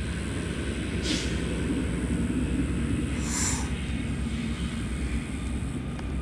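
Steady low outdoor rumble with two brief hisses, about a second in and about three and a half seconds in.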